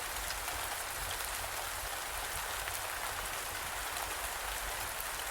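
Steady rain: an even hiss of falling rain with fine patter of drops and a faint low rumble underneath.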